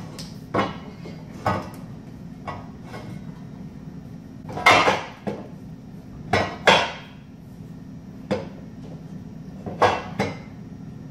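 Steel-plate axle truss clanking and knocking against a Dana 44A axle housing as it is set in place: a string of separate metal knocks, the loudest a little before halfway and two close together soon after. A steady low hum runs underneath.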